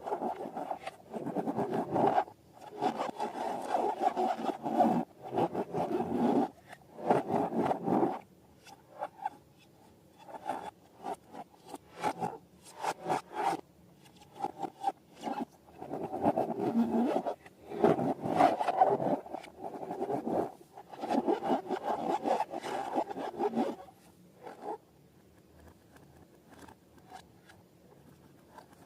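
Rubbery rubbing and scraping in irregular bursts of a second or two, with short clicks between, as balloons and slime are handled; quieter from about three-quarters of the way in.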